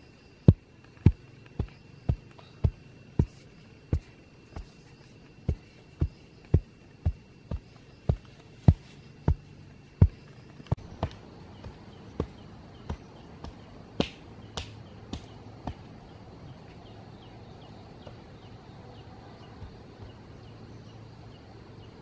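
Hoe blade chopping into loose soil in repeated dull thuds, about two a second. Around ten seconds in the strikes turn fainter, and they stop about sixteen seconds in.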